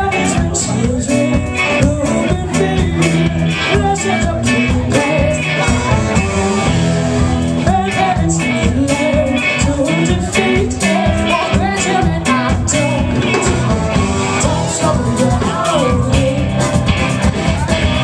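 A live band plays a horn-driven soul-rock song. A baritone saxophone, a trombone and other horns play over electric guitars and a steady drum beat, and a woman sings lead. It is recorded from the audience on a small camcorder.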